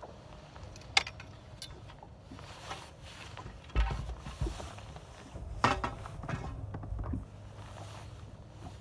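Scattered clicks and knocks of gear being handled in a small fishing boat, the loudest a low thump about four seconds in and a short clatter a couple of seconds later.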